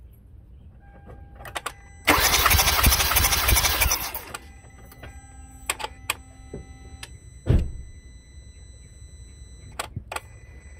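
2012 Kia Soul engine cranked over by its starter for about two seconds with a compression gauge fitted in cylinder 2's spark-plug hole, turning over without firing. This is a compression test, and the cylinder reads about 120, a healthy compression. A single thump follows a few seconds later, with scattered clicks.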